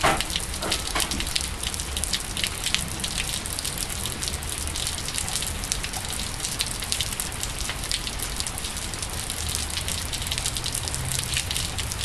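Steady rain falling on wet pavement and standing water, with many sharp drop hits close by and one louder hit right at the start.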